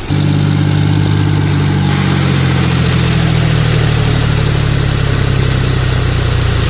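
John Deere 5036D tractor's three-cylinder diesel engine running at a steady low idle. It comes in suddenly and loud right at the start and holds an even pitch.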